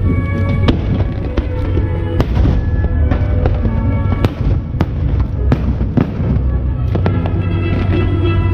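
Aerial fireworks bursting in quick succession, sharp bangs about one or two a second over a continuous low rumble, with the show's music playing over loudspeakers.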